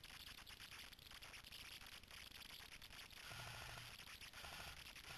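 Faint rustling and crackling of forest-floor leaf litter and gear being handled close to the microphone, with a soft scraping.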